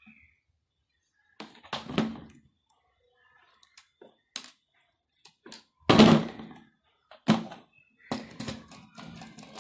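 Hand tools knocking on a wooden tabletop: a few separate thunks, the loudest about six seconds in, then a run of quick clicks and scrapes as a screwdriver works a terminal screw on a plug-in timer.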